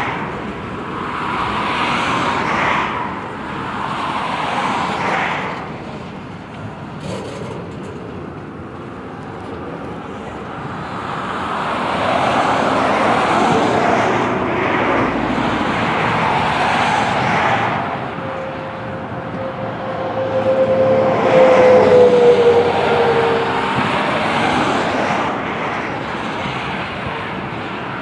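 Double-stack intermodal freight train's well cars rolling past on steel wheels: a steady rumble and clatter over the rails that swells and fades every few seconds as the cars go by. A wheel squeals briefly on the rail about two-thirds of the way through.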